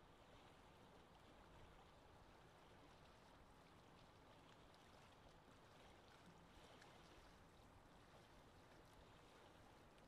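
Faint lake wind ambience: a steady, even rush of wind with moving water.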